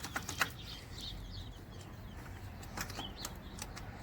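A few sharp clicks and clinks of hand tools on metal engine parts, with small birds chirping in the background.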